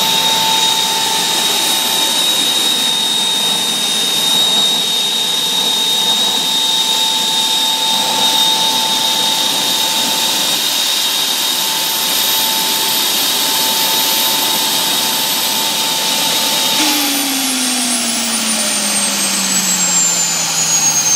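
The turbine engine of the 'Jet Cadet', a 1967 Cub Cadet 125 garden tractor converted to a 60-horsepower, 64,800 rpm turbine, running with a loud rushing exhaust and a steady high whine. About four seconds before the end, the whine starts falling steadily in pitch as the turbine slows.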